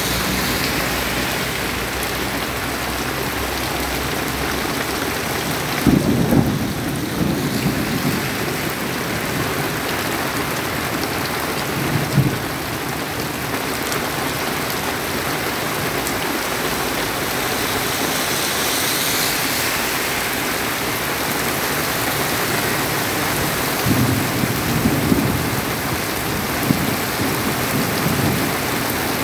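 Heavy rain falling steadily on an asphalt road and roadside plants, a dense even hiss. A minibus driving past on the wet road adds a low engine hum in the first few seconds, and a few brief, louder low thuds come at about six, twelve and twenty-five seconds in.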